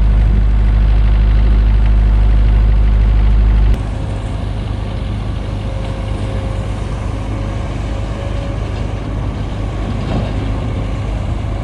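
Heavy diesel engine of construction machinery running steadily, a deep loud drone that drops off suddenly a few seconds in, leaving a lighter, steady engine sound.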